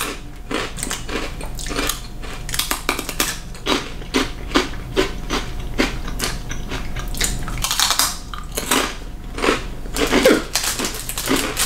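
Crisp Japanese rice crackers being bitten and chewed: a string of irregular crunches.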